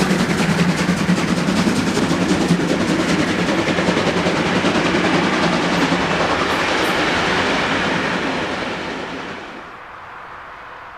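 Steam locomotive chuffing in a fast, even rhythm, fading away over the last few seconds.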